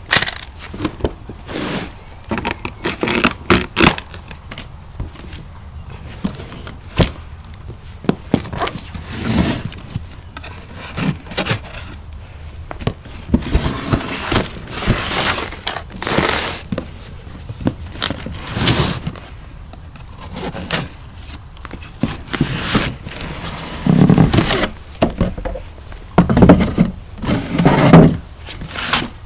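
Packaging and parts being handled during an unboxing: irregular scraping and rustling with sharp clicks and knocks, loudest near the end.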